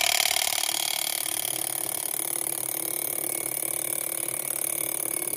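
Impact gun hammering continuously on the forcing screw of a C-clamp ball joint press, pressing the worn lower ball joint out of a Dana 60 front steering knuckle. It makes a steady, fast rattle throughout.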